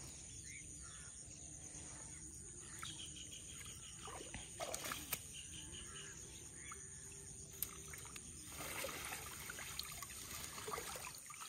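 Faint water trickling and sloshing as a mesh fish trap is worked loose and lifted out of a shallow, flowing creek, with a few light clicks of the trap and a little more movement near the end.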